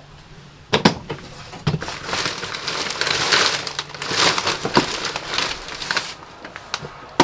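Bags being handled and rummaged through: a knock about a second in, then irregular rustling and crinkling with a few more knocks, fading out near the end.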